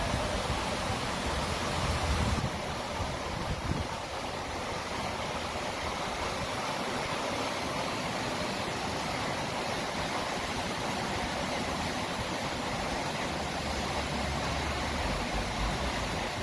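Muddy floodwater from a flash flood rushing down a street as a steady torrent. There is a steady hiss of turbulent water, a little heavier in the first couple of seconds.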